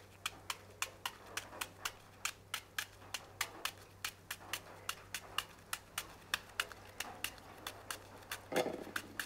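Knife cutting through a white onion held in the hand, a steady run of crisp clicks at about four a second as the blade dices it. A brief, louder scrape comes near the end.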